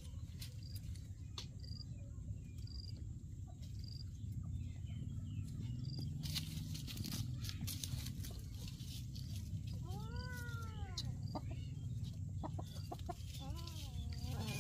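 A cat meows once about ten seconds in, a rising-then-falling call, and again near the end. Before that a faint high peep repeats about once a second, with scattered clicks and rustling, over a steady low rumble.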